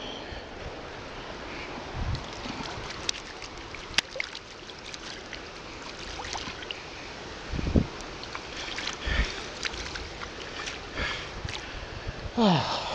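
Steady rush of a river current with wind on the microphone, broken by scattered clicks and knocks from the camera being handled and a few low thumps. A short falling voice sound comes near the end.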